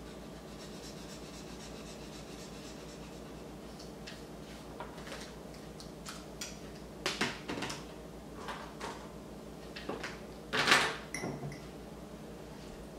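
Desk items being handled on a table: a few light clicks and taps as a highlighter and a ceramic mug are picked up, with the loudest knock near the end, over a steady low room hum.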